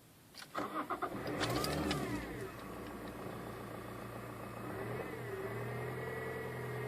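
2010 Toyota Yaris 1.4 D-4D diesel engine cranking and catching about half a second in, its revs flaring and then falling back to a steady idle, with a small blip of revs about five seconds in. At idle a steady high-pitched whirring comes from the alternator, belt tensioner and water pump area; a new alternator has not cured it, and the belt tensioner is next to be checked.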